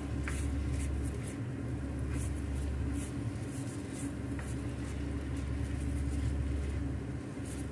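A steady low mechanical hum, with a few light scrapes and taps of a spatula stirring pork pieces in a frying pan.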